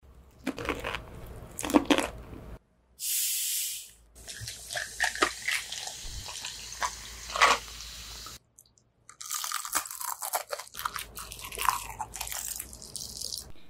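Close-miked crunching bites of crispy fried chicken, then a short hiss and cola pouring and fizzing into a paper cup, then more crunchy bites.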